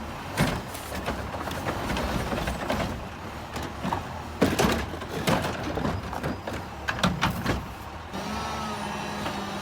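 Garbage truck at work: a noisy stretch of clanks, knocks and hiss, then from about eight seconds in a steadier engine hum.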